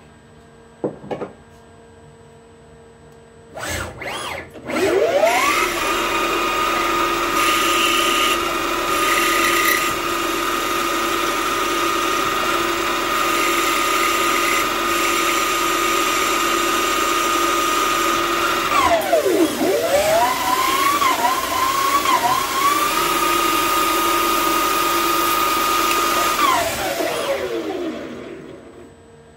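DIY CNC lathe spindle spinning up with a rising whine, then running at steady speed with a high whine over the hiss of machining. Its pitch dips and climbs back about two-thirds of the way through, then falls away as the spindle winds down near the end. A few small clicks come before it starts.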